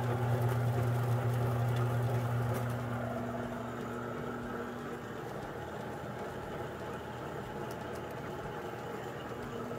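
Motor-driven roller malt mill crushing malted barley: a steady electric-motor hum with the rattle and hiss of grain passing through the rollers. The hum is strongest for the first few seconds, then eases slightly.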